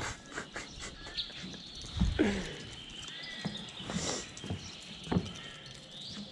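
Birds chirping in the background, with a number of short knocks and handling sounds scattered through.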